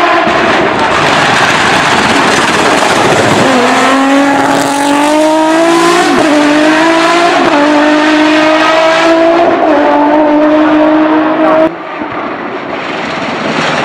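Turbocharged 3.2-litre VR6 of a SEAT León hillclimb race car at full throttle. It starts as a loud, rough sound, then becomes a clear engine note that rises and drops back with several quick upshifts of its sequential gearbox. Near the end the sound cuts suddenly to a quieter engine note that grows louder as the car approaches.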